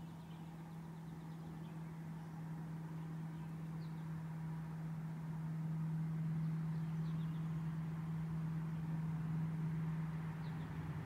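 A steady low machine hum at one unchanging pitch, with a few faint, brief high chirps about four, seven and ten and a half seconds in.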